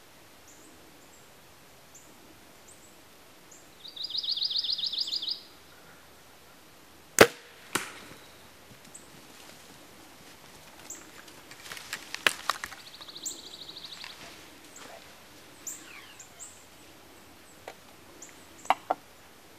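An archery bow shot about seven seconds in: one sharp crack of the string release, the loudest sound, followed about half a second later by a fainter knock. Two short buzzing trills are heard, a louder one about four seconds in and a fainter one about thirteen seconds in, with a few small clicks and rustles.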